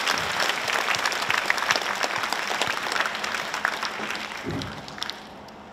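A large audience applauding, many hands clapping together, dying away about five seconds in.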